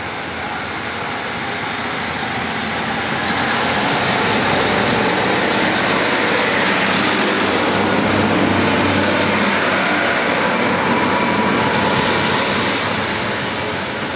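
Class 150 Sprinter diesel multiple unit moving past along the platform, its diesel engines running and wheels on the rails. The noise grows louder over the first few seconds, holds, and starts to fade near the end.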